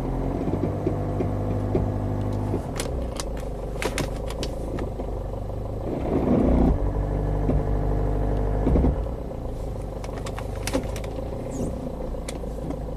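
Jeep Liberty CRD's 2.8-litre four-cylinder turbodiesel running under load with a clattery, tractor-like note. Its pitch shifts in steps, and it gets louder for a moment about six seconds in and again near nine seconds, with a few knocks. The engine is short of power and makes little turbo boost.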